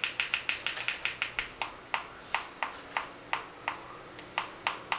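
An African grey parrot making a run of sharp clicks. They come quickly at first, about six a second, then slow to two or three a second after about a second and a half.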